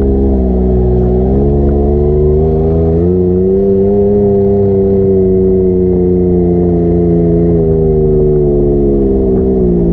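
A vehicle engine running under way, its pitch shifting with the throttle: it dips about half a second in, climbs around three seconds, holds steady, then eases off near eight seconds and again at the end, over a low rumble.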